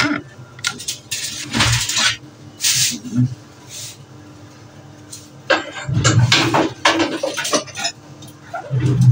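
Clatter of dishes and a metal baking tray being handled, with knocks and scrapes as the oven is opened and closed, in short irregular bursts that are busiest past the middle.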